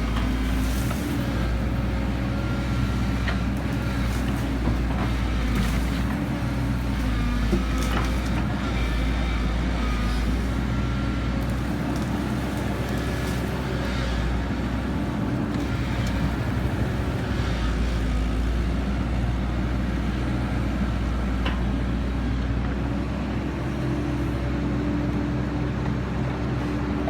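Kobelco SK120 hydraulic excavator's diesel engine running steadily, with a few short sharp knocks through it.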